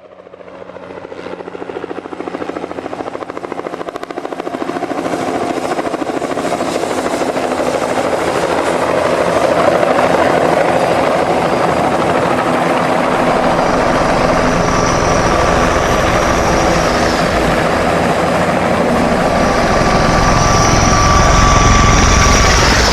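Helicopter in flight: rotor blades chopping in a rapid steady pulse over the engine's drone. It fades in from silence and builds over the first several seconds, then holds loud, with a thin high turbine whine coming in about halfway and again near the end.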